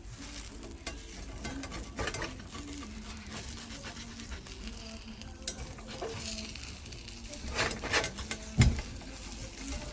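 Eggs sizzling in a stainless steel frying pan while a slotted spatula stirs and scrapes them against the pan, with several sharp knocks from the spatula on the pan, the loudest near the end.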